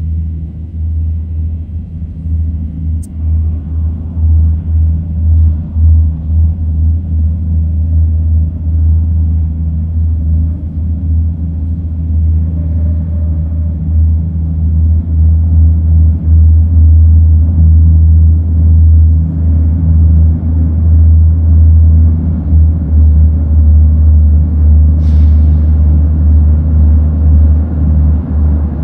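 Diesel engines of NYC Subway R156 work locomotives giving a deep, steady rumble that echoes through the tunnel and grows louder as the train approaches the station. A brief hiss comes near the end.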